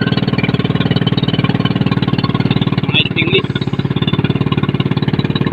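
Small motorboat's engine running steadily at cruising speed, a rapid even chugging of firing pulses.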